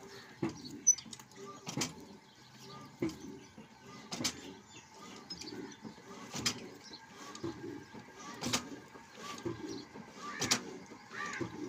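Old Ruston Hornsby diesel engine being turned over slowly by hand before starting: a heavy knock about every two seconds, with lighter clicking between.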